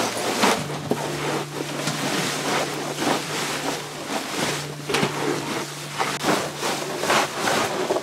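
Aso takana mustard-green leaves being rubbed and kneaded with salt by rubber-gloved hands in a wooden box: crisp crunching and rustling of the leaves in repeated strokes, one or two a second. A faint steady low hum runs underneath.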